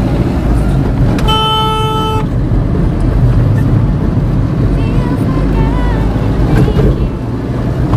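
Car horn sounding once for about a second in road traffic, heard over the steady engine and road rumble inside a moving car.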